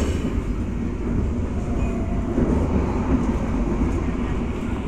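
Steady low rumble and running noise of a moving passenger train, heard from inside the coach.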